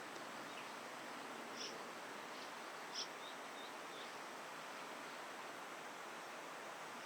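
Eastern spot-billed duck ducklings giving a few short, high peeps, the clearest about a second and a half in and about three seconds in, with fainter ones just after; chicks calling while still separated from their mother. A steady hiss of background noise runs underneath.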